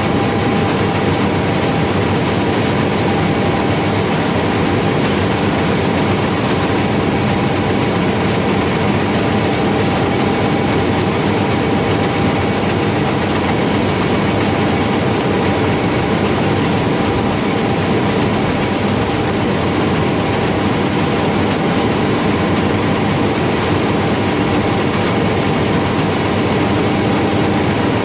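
John Deere S770i combine harvester's six-cylinder turbodiesel and threshing machinery running steadily, a loud even mechanical drone with a constant hum.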